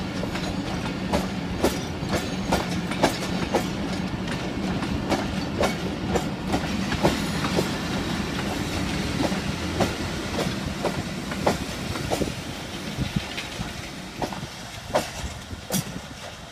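Passenger train coaches rolling past, their wheels clicking over the rail joints about twice a second over a steady low rumble. The sound grows quieter over the last few seconds.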